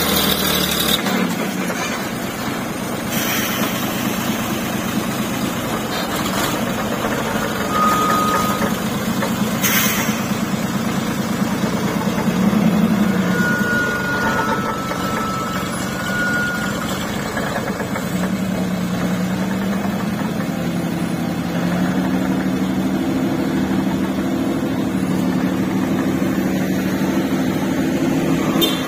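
Diesel engine of a Mitsubishi Fuso tanker truck labouring under load up a steep climb at low speed. The engine note wavers and shifts in pitch, then holds steadier near the end.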